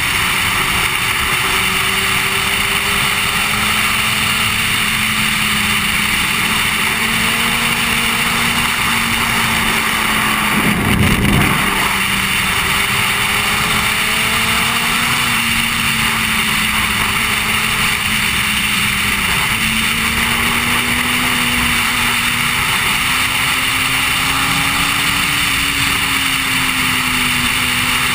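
Yamaha sport motorcycle's engine running at a steady cruising speed under a loud rush of wind on a helmet-mounted camera, the engine note creeping slowly higher in the last several seconds. About eleven seconds in, a brief louder low whoosh.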